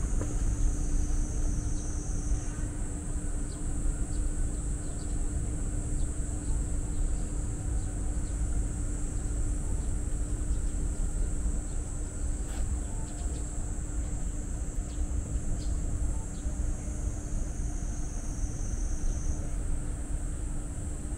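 Steady outdoor ambience: continuous high-pitched insect song, louder for a couple of seconds at the start and again near the end, over a steady low rumble and a low hum.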